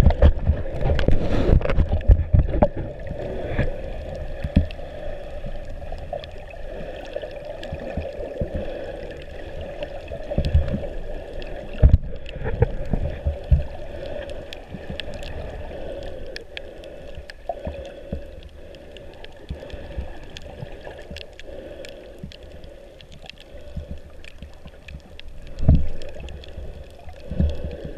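Underwater water noise heard through a GoPro's sealed housing: a muffled, steady wash with gurgling and sloshing, scattered faint clicks, and low thumps from the swimmer's movements, loudest in the first few seconds and again near the end.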